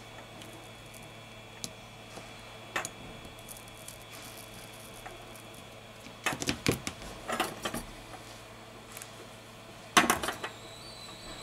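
Plastic phone parts being handled during disassembly: scattered light clicks and knocks as the midframe is lifted off the display frame and set down. There is a cluster of clatter a little past halfway and the loudest knock about ten seconds in, over a faint steady hum.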